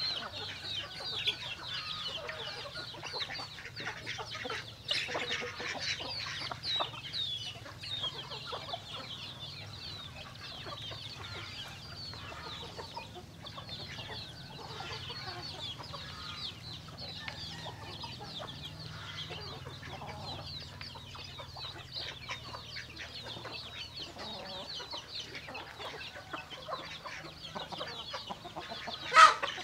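A flock of chickens calling together, many short overlapping calls running on throughout, with a sudden loud sound near the end.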